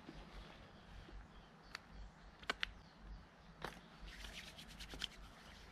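Faint handling noises: a few scattered light clicks, then a brief crackly rustle about four seconds in.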